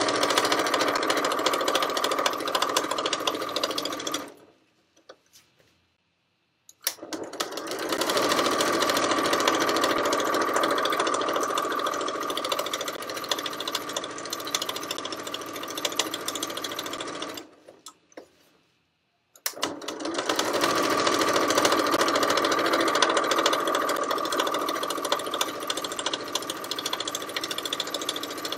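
Janome electric sewing machine stitching steadily, with a steady motor whine. It runs in three long stretches and stops twice for a couple of seconds, about four seconds in and again about seventeen seconds in.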